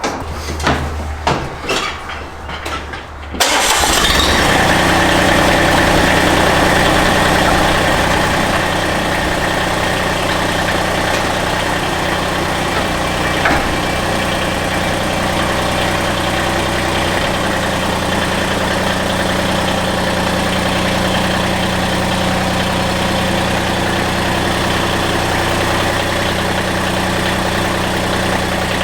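Lawn tractor engine being cranked by its starter for about three seconds, then catching and running. It runs fast at first, settles a little lower about eight seconds in, then holds a steady run.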